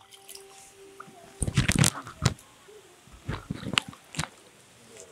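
A bare hand stirring and squeezing a thick slurry of cow dung, cow urine and water in a plastic bucket: irregular wet squelches and slops, loudest about one and a half to two seconds in.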